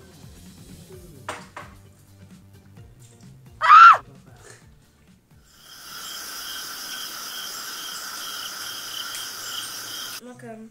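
Edited-in sound effects. Just under four seconds in there is one loud, brief squeal that rises and falls. From about halfway a steady cricket-chirp effect runs with an even pulse and cuts off suddenly near the end. Before that, faint clinks of chopsticks and bowls can be heard.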